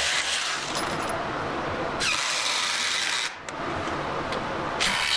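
Corded hammer drill boring into the concrete slab through a wooden bottom plate to take Tapcon anchors, with a brief stop a little past three seconds in.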